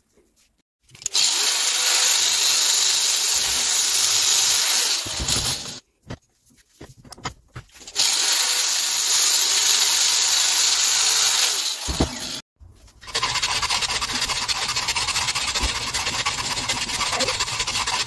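Angle grinder with a cut-off disc cutting a small steel tube clamped in a bench vise, in three steady runs separated by short pauses.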